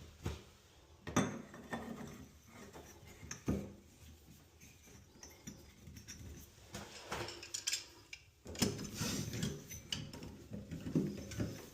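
Scattered clinks and knocks of hard, metal-sounding parts being handled, with a denser run of clatter in the second half, as from fitting a shower head and its hardware.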